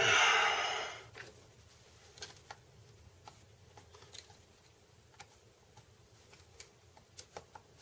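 Small scattered clicks and taps of screwdriver tips and fingers working a circlip and O-ring down onto a 120mm cooling fan's hub shaft, after a loud scrape that fades out within about a second.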